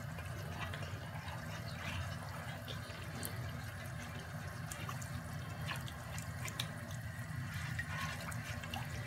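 Lemon and cornstarch sauce heating in a non-stick pan while a silicone spatula stirs it: a soft, steady wet sloshing with scattered small ticks and pops, over a low steady hum. The sauce is on the heat, starting to thicken.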